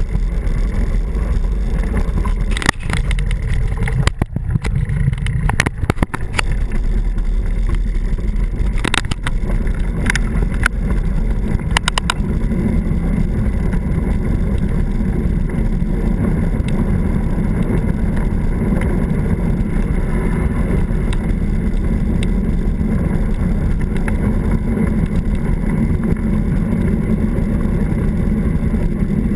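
Steady low rumble of wind on the microphone of a camera on a moving mountain bike, mixed with tyres rolling on a gravel track. Several sharp knocks come in roughly the first twelve seconds.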